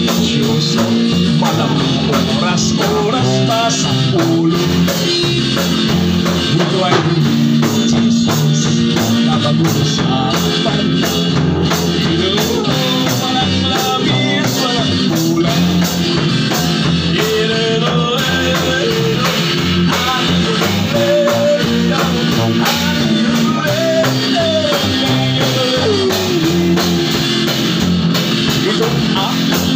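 Rock-style music: an electric guitar played over a steady drum beat, with a gliding melody line, in an instrumental stretch between sung verses.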